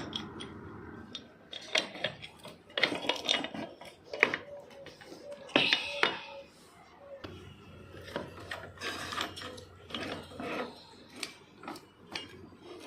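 Hand work on an angle grinder to take its cutting blade off: irregular metal clinks, taps and scraping as the blade and its fixing are worked loose.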